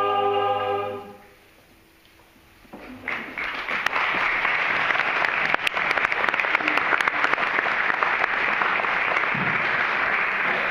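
An a cappella mixed choir holds its final chord and releases it about a second in. After a short silence, an audience starts applauding about three seconds in and keeps up steady applause.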